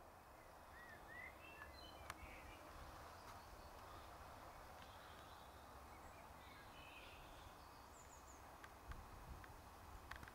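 Near silence: faint outdoor ambience with a few soft, distant bird chirps.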